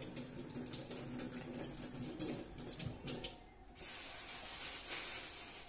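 Water running from a tap into a sink, breaking off briefly a little over three seconds in and then running again.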